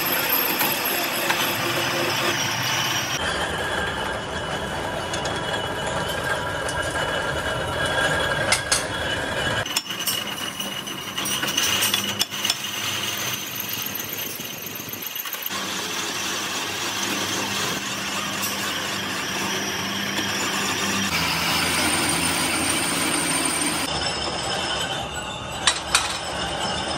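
Metal lathe turning a steel hub ring, the cutting tool squealing against the metal over the machine's steady running noise. A few sharp metallic knocks stand out.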